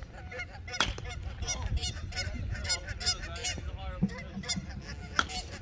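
Geese honking over and over, with two sharp cracks of a bat hitting a ball, one about a second in and one near the end.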